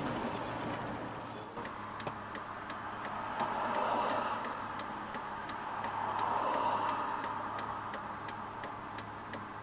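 A vehicle running, with a steady low hum and road or engine noise that swells twice, under a sharp, regular ticking of about one to two ticks a second.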